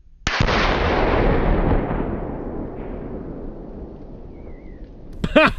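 A Tannerite exploding target set off by a .308 rifle bullet: one sudden, loud blast about a quarter second in, then a long echoing decay that fades over about four seconds.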